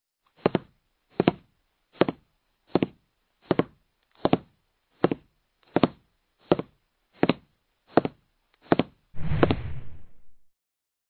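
A series of twelve evenly spaced knocks, about three every two seconds, followed by a longer rumbling knock that lasts about a second.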